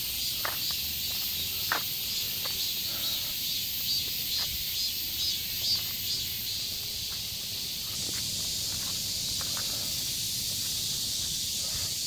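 A steady high-pitched insect chorus from the surrounding trees, with a faint pulsing texture. Footsteps on a paved path come through as scattered light taps.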